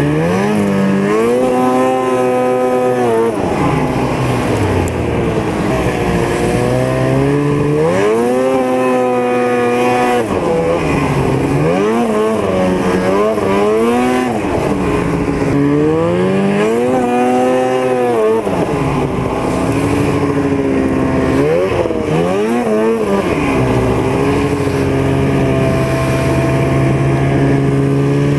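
Snowmobile engine running under way, its pitch rising and falling again and again as the throttle is opened and let off, then holding steady for the last few seconds.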